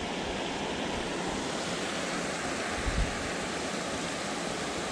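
Steady rush of water pouring over a dam, an even noise with no breaks. A brief low thump about three seconds in.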